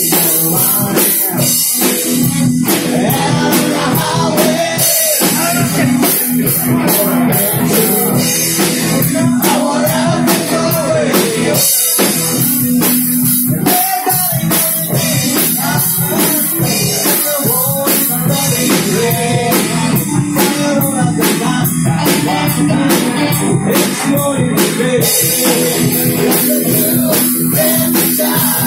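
Live rock band playing: a man singing over electric guitars and a drum kit.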